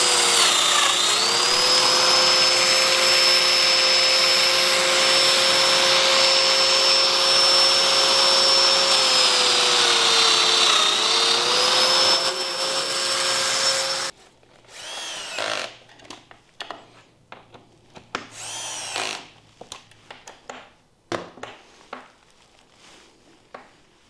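Festool Domino DF 500 joiner running with its dust-extraction hose attached while cutting mortises. Its motor pitch dips briefly twice as it cuts, and it shuts off about 14 seconds in. After that come quieter scattered knocks and handling sounds.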